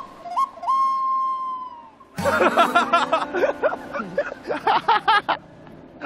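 A whistle: a couple of short notes, then one long held note that sags slightly in pitch. About two seconds in, busy music with quick notes and percussive hits takes over.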